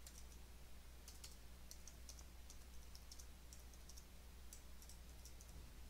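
Faint typing on a computer keyboard: scattered, irregular light key clicks over a steady low hum.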